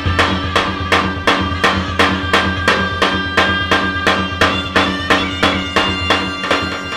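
Zurli, Macedonian folk shawms, playing sustained reedy notes over a tapan drum beating an even rhythm of about three to four strokes a second.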